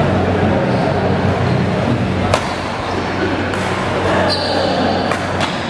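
Badminton rackets striking the shuttlecock during a doubles rally: three sharp hits, one a little over two seconds in and two close together near the end, over a steady hum of the hall.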